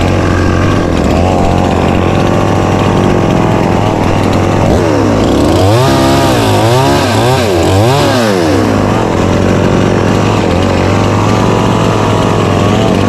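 Stihl two-stroke chainsaw running at a steady speed, revved up and down about four times in the middle before settling back to its steady note.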